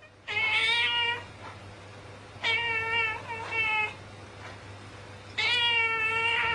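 Cat yowling in a hostile standoff with another cat: four long, drawn-out yowls with short pauses between, the last running on past the end.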